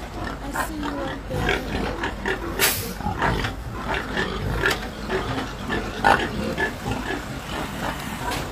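Pigs grunting inside a slatted livestock truck, short irregular calls throughout. A few sharper sounds stand out, the loudest about two and a half seconds in and again about six seconds in.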